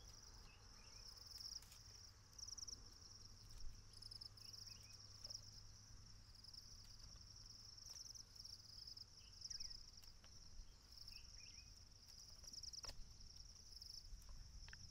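Faint, steady chirring of insects, cricket-like, pulsing on and off in a high band, with a few faint knocks.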